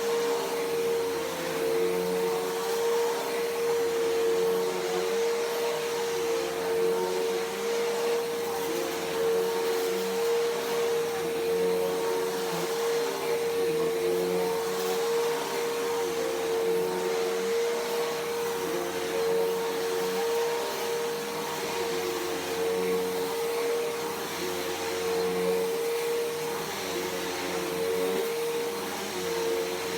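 Bissell PowerForce Helix Turbo upright vacuum cleaner running, its motor a steady high whine that wavers slightly.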